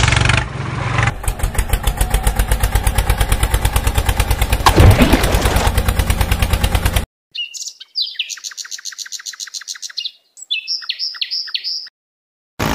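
Dubbed-in tractor engine sound effect chugging in a fast, even rhythm, with a short falling swoop about five seconds in. About seven seconds in it cuts off and a few seconds of high chirping calls follow.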